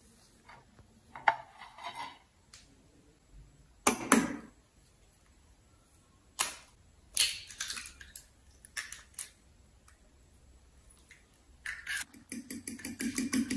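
An egg is cracked on a ceramic bowl and opened into it, with a few sharp clicks and knocks as it is handled; a louder knock comes about four seconds in. Near the end a fork starts beating the egg in the bowl in quick, even taps.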